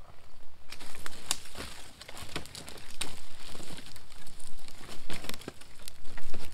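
Newly lit kindling campfire crackling and snapping as it catches, with many sharp irregular pops over a rustling hiss, along with twigs rustling as they are fed onto it.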